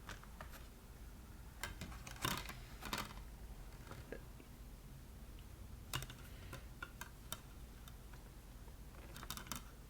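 Plastic DVD case and packaging being handled: faint scattered clicks and short rustles, a few at a time.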